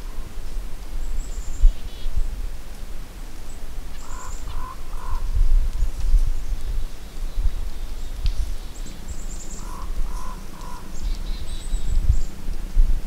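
Birds calling: two groups of three short, lower notes, about five seconds apart, with thin high chirps scattered between. A steady low rumble underlies them.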